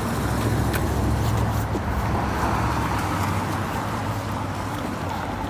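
A car passing on the road: a low engine rumble and tyre noise that swell in the first half and fade away in the second.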